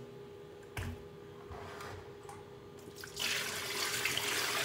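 Water poured from a bowl over a pile of fish in a sink, a steady splashing rush starting about three seconds in; a soft knock about a second in.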